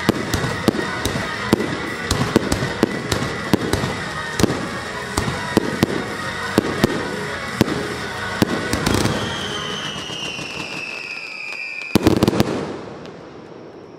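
Fireworks bursting in quick succession, several sharp bangs a second, with music underneath. About nine seconds in the bangs thin out and a high tone slides slowly downward, then a tight cluster of loud bangs near the end dies away.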